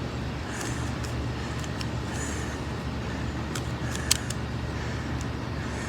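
Steady low background hum with a few sharp plastic clicks near the middle, the loudest a little after four seconds in, from a Rubik's cube being handled and turned.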